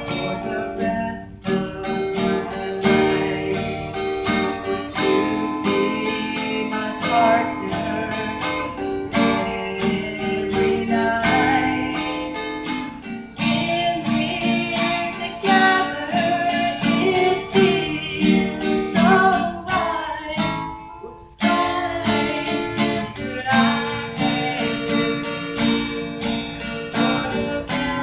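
Acoustic guitar strummed through a song's chord changes, dropping away briefly twice.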